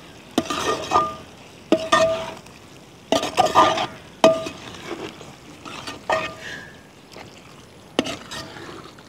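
Metal slotted spoon stirring chunks of beef into thick curry gravy in a large metal cooking pot, scraping and knocking against the pot's side about every second or so, several strokes leaving a brief metallic ring.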